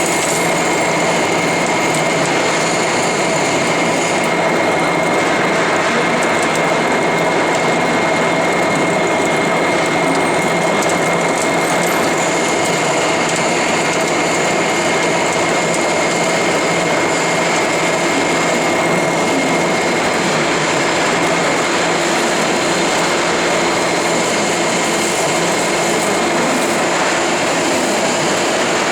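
Lathe running, a steady machine noise with a constant high whine.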